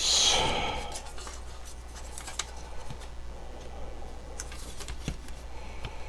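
A thin plastic 120 mm case fan and a sheet-metal fan bracket being handled and fitted together. A short rattle at the start fades over about a second, followed by scattered light clicks of plastic and metal parts.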